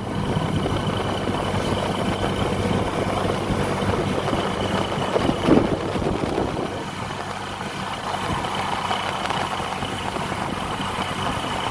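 A bus's diesel engine idling steadily, with a brief louder sound about five and a half seconds in.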